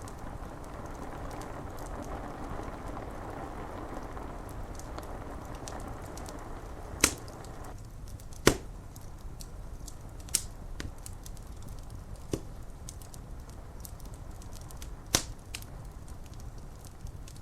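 Wood fire crackling with many small ticks and about five sharp, loud pops, over a steady hiss of rain on window glass. The mid-pitched part of the hiss thins out about eight seconds in.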